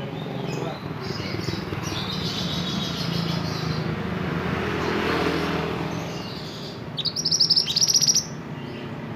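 Male mantenan (a minivet) chirping: faint high calls a couple of seconds in, then a loud, fast run of short sharp rising notes about seven seconds in, lasting about a second. A steady low hum runs underneath.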